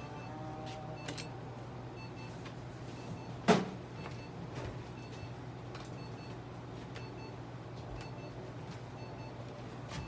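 Steady low electrical hum, with one sharp knock about three and a half seconds in and a few faint ticks.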